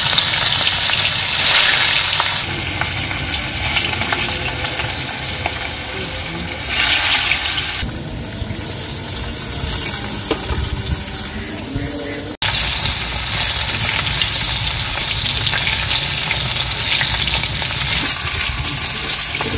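Pieces of hilsa fish, coated in salt, turmeric and chilli, sizzling as they fry in hot oil in a karahi. The sizzle is loudest right as the fish goes into the oil, then settles to a steady frying hiss that cuts out for an instant about twelve seconds in and resumes.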